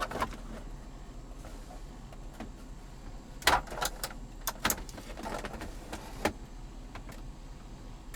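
Scattered knocks and clicks, like objects being handled, with the loudest about three and a half seconds in.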